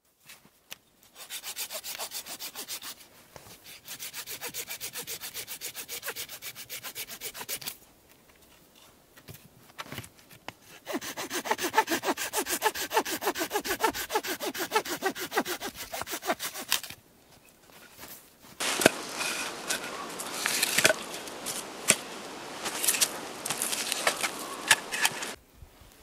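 Hand saw cutting dead branches with quick back-and-forth strokes, in several runs broken by short pauses. The last run, from about two-thirds of the way in, is more uneven and has a few sharp knocks.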